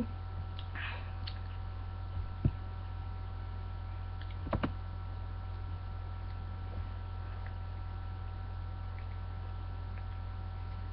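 Steady electrical hum with a few faint high steady tones over it, and short faint knocks a couple of seconds in and again near the middle.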